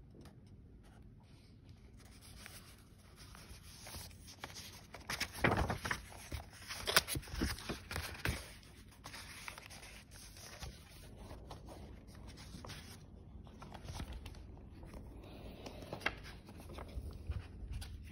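Paper pages of a hardback book being flipped and handled, rustling and rubbing, with the loudest flurry of page turns about five to eight seconds in.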